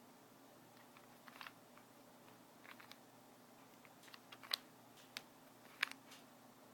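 Rubik's Cube layers being turned by hand: irregular clusters of sharp plastic clicks and clacks, the loudest two about four and a half and six seconds in.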